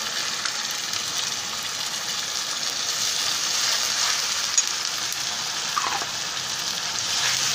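Ginger-garlic-onion paste and browned chopped onions sizzling steadily in hot mustard oil in a metal kadhai, stirred with a metal spatula that scrapes and gives a sharp click against the pan about halfway through.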